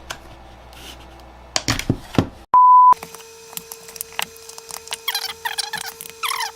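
Clicks and scrapes of screwdrivers prying at a laptop battery pack's plastic casing, broken about two and a half seconds in by a loud, pure, steady beep lasting about half a second. After the beep, a faint steady hum runs under a series of about five quick squeaky scraping strokes as the prying goes on.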